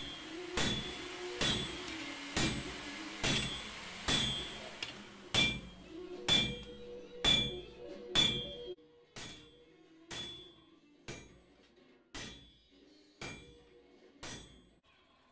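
Hand hammer striking a red-hot steel falchion blade on an anvil, about one blow a second, each blow giving a short metallic ring. The blows grow fainter after about nine seconds.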